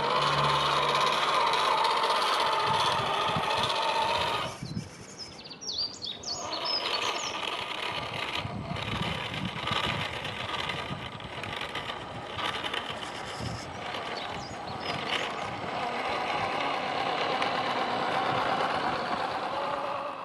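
Electric motor and drivetrain of a 1/10 scale radio-control crawler whining as it drives, rising and falling with the throttle, easing off sharply about four and a half seconds in and then picking back up.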